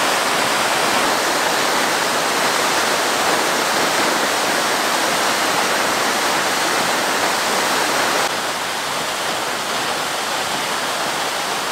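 Steady rush of falling water from a waterfall. It drops suddenly a little in loudness about eight seconds in.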